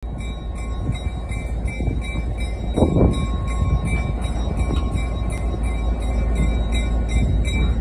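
Skunk Train passenger cars rolling, heard from the open platform between coupled cars: a steady low rumble and rattle with a faint steady high whine, and one louder clunk about three seconds in.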